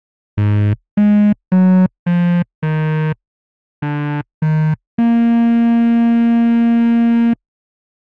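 Synthesized horn-like tone played on a phone app's on-screen piano keyboard, imitating a cruise ship's musical horn. Seven short notes come first: the second leaps well above the first and the next ones step lower. A long higher note is then held for about two seconds.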